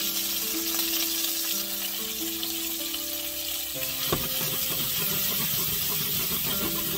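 Diced potatoes sizzling in oil in a stainless steel sauté pan, with soft background music. About four seconds in, the pan is shaken with a knock, and the potatoes tumble and slide against the metal.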